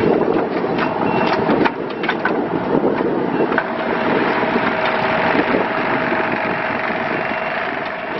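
Kubota U35-4 mini excavator's diesel engine running, with several sharp clanks from the machine in the first few seconds and a steady whine from about three and a half seconds in.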